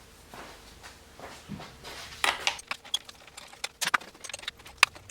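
Scattered clicks, taps and light rattles of a hand tool and small parts being handled as the bolts holding an electric dirt bike's headlight are taken out. The clicks come thicker and sharper in the second half.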